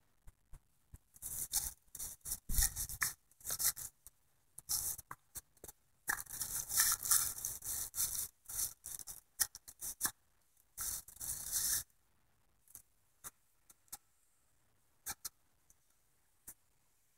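Irregular bursts of scraping and rubbing right at the microphone, camera handling noise, for about the first twelve seconds, then a few faint isolated clicks.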